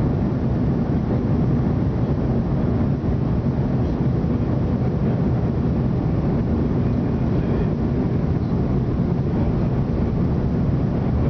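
Jet airliner cabin noise at a window seat over the wing: a steady low rumble of the jet engines and rushing airflow during the descent to land.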